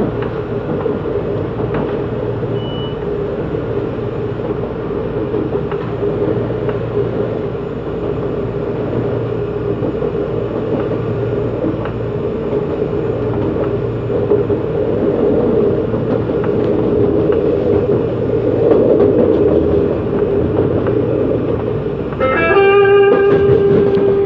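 CAF Série 8500 electric multiple unit running between stations, heard from on board: a steady rumble of wheels on the track with a heavy traction-motor drone, growling a lot, that builds louder past the middle. About 22 seconds in, a clear pitched tone with several overtones starts, as an onboard chime would.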